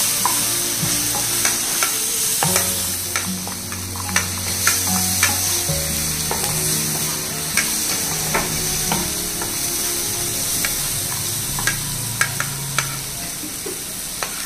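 Chopped tomatoes and peas sizzling as they fry in mustard oil in a non-stick frying pan, with a wooden spatula stirring and scraping, giving scattered sharp clicks against the pan.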